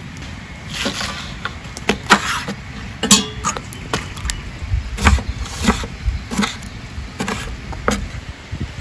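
Food preparation with about nine irregular sharp knocks and splashes: tomatoes swished by hand in a steel bowl of water, then cut with a knife on a wooden board.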